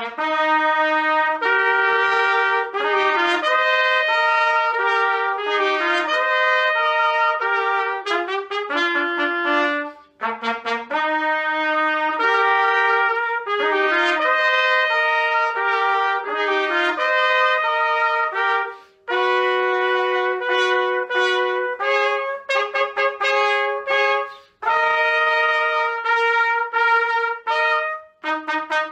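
Two trumpets playing a melodic duet, two parts sounding together, in phrases broken by a few short pauses for breath.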